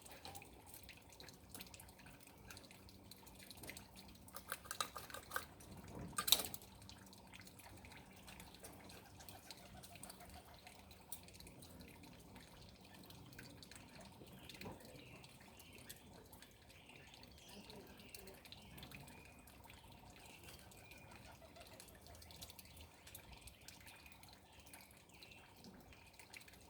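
Faint steady trickling and dripping of water from a garden pond. A few short knocks and rustles come about four to six seconds in, the loudest just after six seconds.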